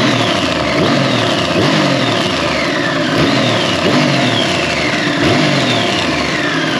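Triumph Street Triple 765 RS three-cylinder engine running, with a cycle of rising and falling pitch that repeats a little more than once a second. Under it is the odd noise that sounds like a worn cam chain but comes from loose bolts on the valve cover tab.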